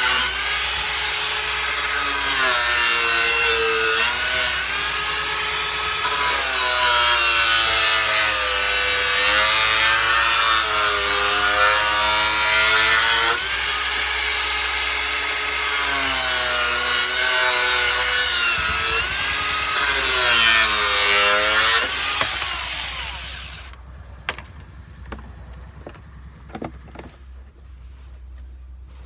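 Angle grinder cutting a black plastic valve box, its motor whine dipping and recovering again and again as the disc bites into the plastic. About three-quarters of the way through it runs down and stops, leaving a few faint knocks.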